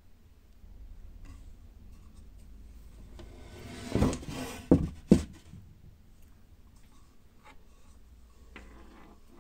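Handling of carved wooden kuksa cups: a rubbing scrape about four seconds in, then two sharp knocks half a second apart, with faint scattered taps around them.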